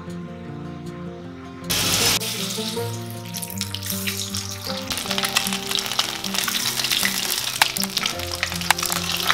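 Batter-coated boiled duck eggs frying in hot oil in a steel kadai. A loud sizzle starts suddenly about two seconds in and goes on as a crackling sizzle over background music.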